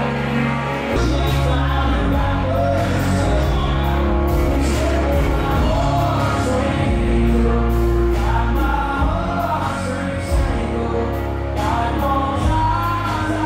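Music with singing voices over a heavy, steady bass line.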